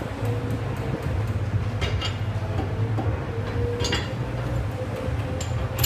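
A few light metal clinks, about two seconds apart and the last one the loudest, as a fender hanger bracket and its bolts are set in place by hand on a truck's suspension, over a steady low background hum.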